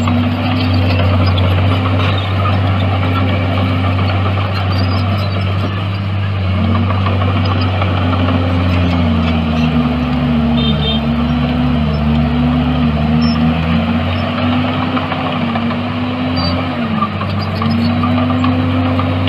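Heavy diesel earthmoving machinery running under load: a steady low engine drone with a higher engine note that dips and recovers again and again. From about nine to fourteen seconds in, a second engine note runs alongside it.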